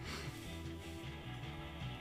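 Quiet background music with guitar.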